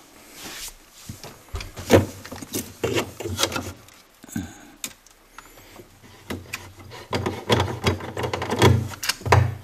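Irregular clicks, knocks and rattles of the freezer's wire baskets and contents being handled while reaching in for the dead light bulb, with a sharp knock about two seconds in and a busier run of clatter near the end.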